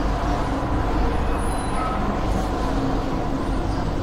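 Steady rumble and hum of a metro train at an underground platform.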